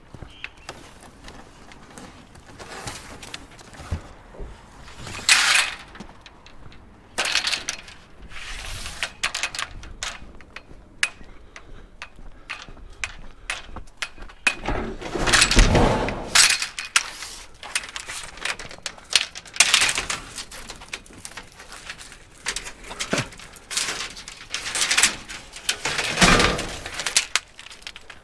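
Aluminium scrap clattering, knocking and scraping against the inside of a van as it is pushed and shifted in through the back doors, with a string of irregular loud knocks.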